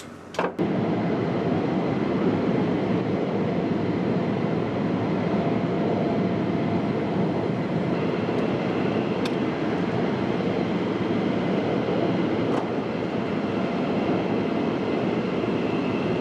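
Steady, loud roar of jet aircraft running on an airfield flight line, with a faint high whine joining about halfway.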